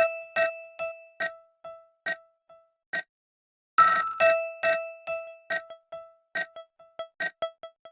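Nokia 3560 ringtone playing: a melody of short, sharply struck electronic notes, each dying away quickly. The phrase starts over about four seconds in, with a run of quicker notes near the end.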